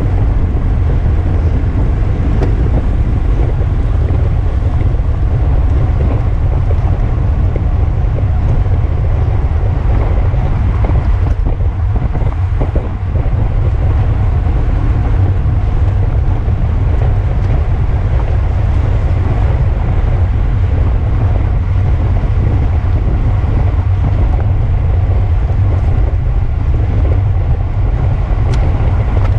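Steady low wind rush buffeting the microphone of a camera on a road bicycle moving at race speed.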